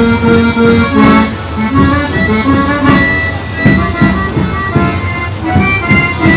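Live traditional folk music: a melody of held, reedy notes over a steady beat of about two strokes a second.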